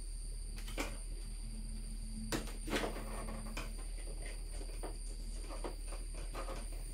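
A few sharp plastic clicks and knocks, the loudest about two to three seconds in, then lighter ticks, as the plastic cowl panel at the base of a 2001 Ford Mustang GT's windshield is handled.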